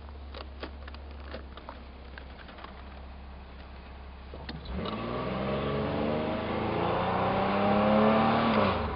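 A 1992 Chevy Camaro RS V6 engine heard from inside the cabin, running at a steady low idle with a few light clicks. A little under five seconds in it accelerates, the revs climbing and growing louder for about four seconds, then falling away just before the end.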